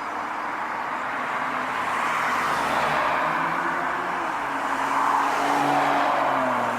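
Car on the road: a steady rush of tyre and engine noise, with the engine note drifting slightly lower in the second half.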